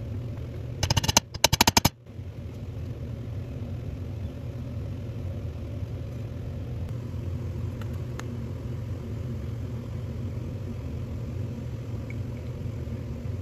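A quick run of sharp metal-on-metal taps, about a second in and lasting about a second, as a roll pin is tapped out of a cast-iron oil pump cover with a pin punch and hammer to free the pressure relief valve plunger. A steady low hum of workshop background runs under it.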